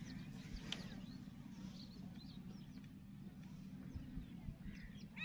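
Faint, scattered bird chirps over a low, steady background hum, with one clearer call right at the end.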